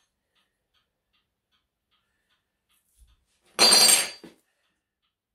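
A clock mechanism ticking faintly and steadily, about two or three ticks a second. A little past halfway comes one loud, brief scraping rustle of handling that lasts under a second.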